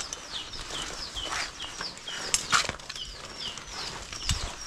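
A bird repeats short, high, falling chirps about three times a second. Scattered clicks and rustles come from a black fiber-optic drop cable being handled on a concrete floor, the sharpest about two and a half seconds in.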